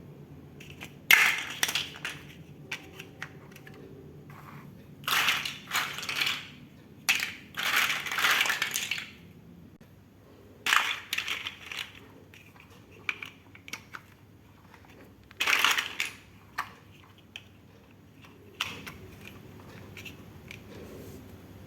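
Plastic toy building bricks being handled and pressed together: irregular bursts of clattering and rattling, the longest about two seconds, with single clicks in between and short pauses.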